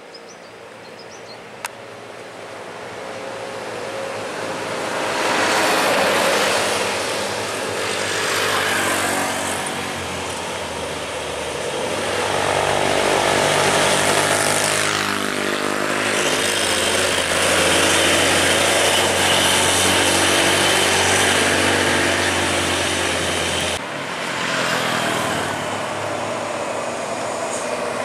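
Road traffic on a steep climb: motorcycles passing, then a heavy truck's diesel engine pulling uphill under load with a steady low drone, which breaks off sharply a few seconds before the end.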